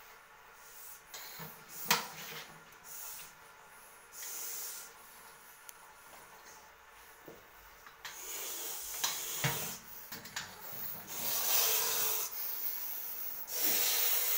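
A snake hissing in several short breathy bursts, mixed with scraping and rubbing, and a sharp knock about two seconds in.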